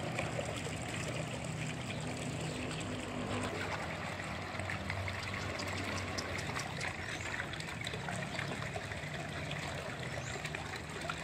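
Shallow pond water trickling and lapping, with many small splashes as a hand net is swept through it by someone wading.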